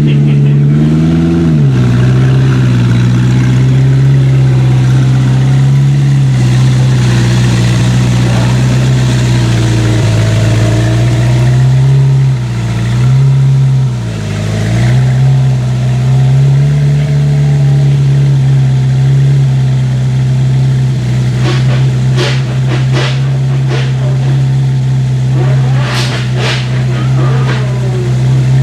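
A car engine running at steady, held revs, with a brief rise about a second in and two short dips in pitch around the middle. Short sharp higher sounds come several times near the end.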